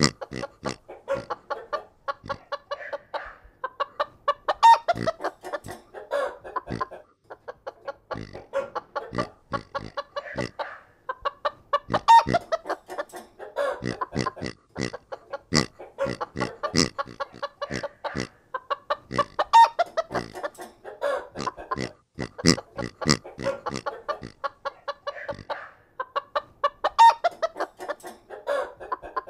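Hens clucking in short calls, mixed with many short sharp clicks. The same few seconds of sound repeat about every seven and a half seconds.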